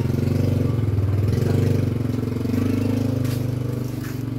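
Small motorcycle engine running at low revs, fading gradually as the bike rides away.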